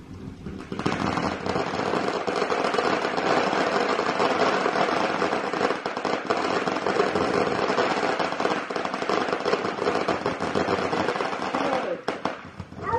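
Ground fountain firework going off with a dense, rapid crackling, like a stream of tiny firecrackers. It builds about a second in and dies down near the end.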